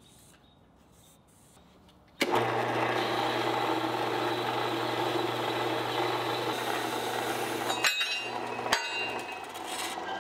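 Horizontal metal-cutting bandsaw starting up about two seconds in and then running steadily as its blade cuts a miter through steel square tubing. There is a brief dip and a sharp click around eight to nine seconds in.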